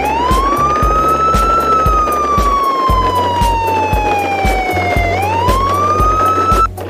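Wailing siren, its pitch rising and falling slowly in long sweeps and cutting off abruptly near the end, over background music with a steady beat.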